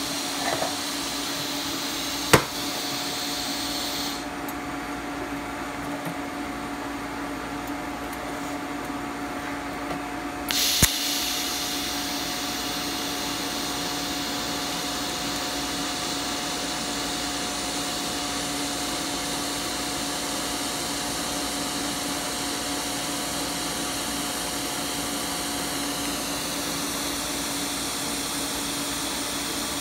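TIG welding arc on 16-gauge 304 stainless at about 100 amps: a steady hiss over a low hum as the fillet bead is run. The hiss stops for several seconds, then comes back with a sharp click as the arc is struck again, and runs steadily to the end.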